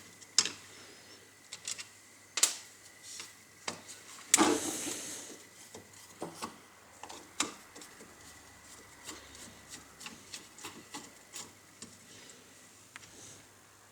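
Disassembly of an angle grinder: scattered clicks and taps of a screwdriver and small metal parts as the gearbox housing is unscrewed from the motor, with a longer scraping rub about four seconds in.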